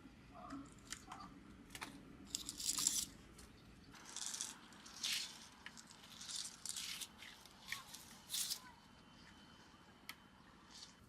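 Short, irregular bursts of rustling, tearing and snapping of leafy plant material, as tomato plants are handled and fruit is picked by hand.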